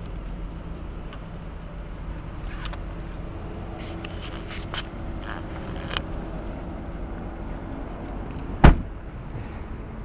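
Toyota Soarer's 1JZ-GTE twin-turbo straight-six idling steadily, with a few light clicks. A car door is shut with one loud thud about three-quarters of the way through.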